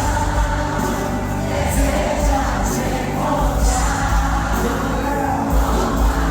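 Live religious music: a group of voices singing a worship song over band accompaniment with a steady bass and regular cymbal hits.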